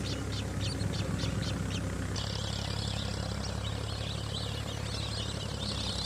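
Small birds calling: a run of short, high chirps about four a second, then from about two seconds in a dense, continuous chattering of many birds together. A steady low hum runs underneath.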